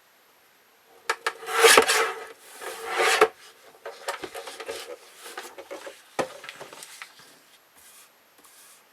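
Paper being handled and slid across a work surface: two loud rustling sweeps, then lighter rustling and a sharp click a little after six seconds in.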